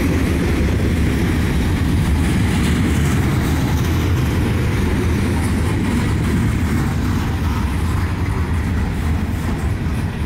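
Freight train of covered hopper cars rolling slowly past: a steady, loud rumble of steel wheels on the rails.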